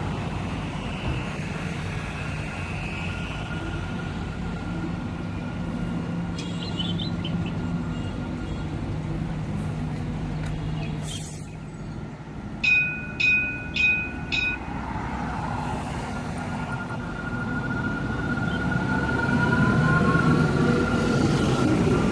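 Alstom Citadis 302 tram approaching a stop, running with a steady electric whine. About halfway through come four short warning beeps. Its running then grows louder, with a rising whine, as it comes alongside.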